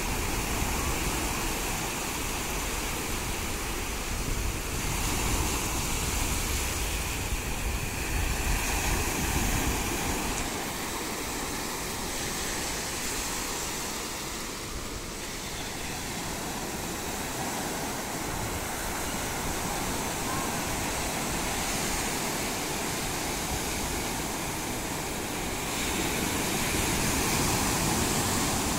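Ocean surf breaking and washing up a sandy beach: a continuous rushing of water that swells louder as waves come in and eases between them.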